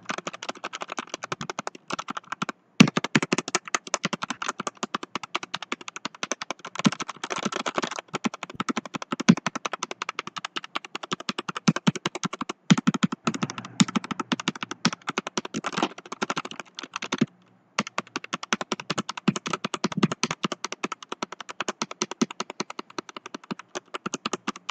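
Fast, continuous typing on a Leaven K550 mechanical keyboard with red linear switches: a rapid patter of keystrokes that breaks off briefly twice.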